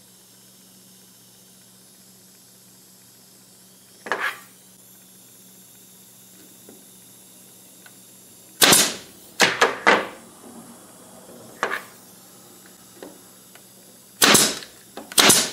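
Senco pneumatic nailer firing into a glued stack of wooden blocks: about six sharp, loud shots in the second half, spaced irregularly, each with a short hiss of air. A single knock comes about four seconds in.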